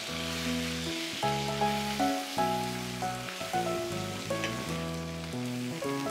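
Sesame-crusted ahi tuna steaks sizzling as they sear in oil in a stainless steel frying pan, under background music with held notes that change about once a second.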